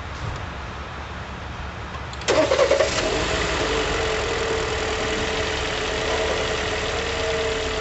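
2018 Jeep Compass 2.4-litre four-cylinder engine starting on its first run after an oil and filter change: it cranks and catches about two seconds in with a short uneven burst, then settles into a steady idle.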